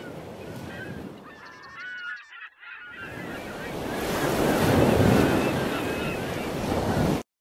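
Ocean waves washing on a shore, with birds calling over them in short, curving cries. The surf swells louder about halfway through and cuts off abruptly just before the end.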